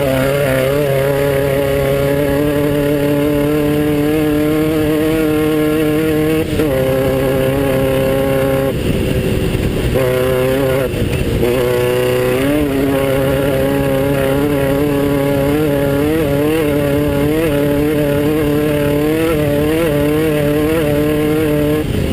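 Class 9 off-road race buggy's air-cooled Volkswagen engine running hard, heard from on board, its pitch wavering with the throttle. About nine seconds in the note drops as the throttle is eased. Then it climbs in a steep rising rev and runs on with a bouncing, uneven pitch.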